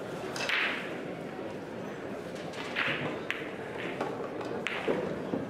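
Pool balls clicking against each other a few times over a steady hall murmur, with a couple of short taps and a soft thud.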